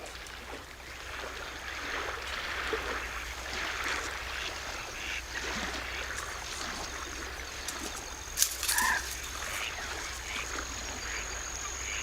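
A flock of wild ducks calling and quacking over wetland water, many overlapping calls with a louder one about two-thirds of the way through.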